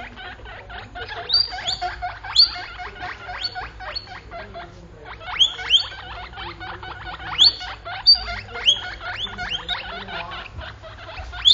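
Guinea pigs squeaking: short squeaks that rise steeply in pitch, often two or three in quick succession, over a dense patter of small clicks and rustles.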